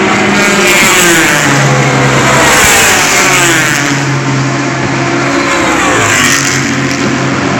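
Race car engines at high revs passing by on the track, several at once, their pitch falling as each goes past, over a steady engine note.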